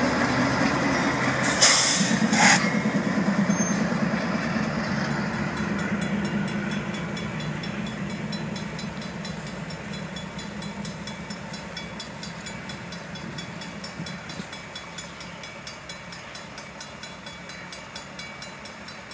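Norfolk Southern freight train passing over a road crossing, its low rumble slowly fading as it moves on. Two short, loud bursts of noise about two seconds in, and a faint regular ticking in the second half.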